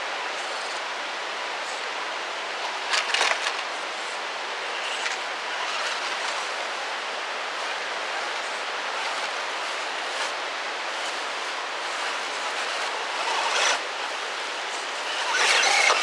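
Steady rushing of a waterfall, with short louder rustles about three seconds in and again near the end.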